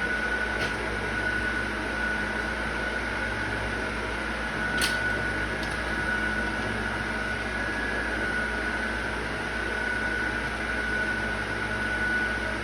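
A steady machine hum with a faint high whine running under it, and a light click about five seconds in.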